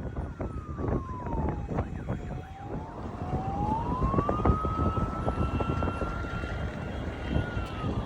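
A siren wailing slowly: its pitch falls over about two seconds, climbs back, holds for a few seconds and starts falling again near the end, over a steady low rumble with scattered knocks, like traffic noise.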